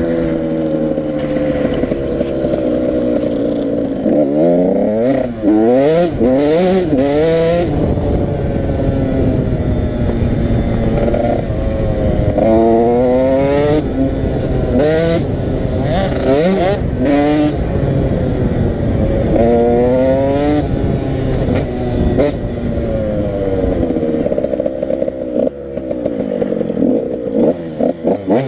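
85 cc motorcycle engines running and being revved again and again, the pitch climbing and falling with each blip of the throttle, with engines at different pitches overlapping at times. Short sharp cracks come through now and then, around a quarter of the way in and again past the middle.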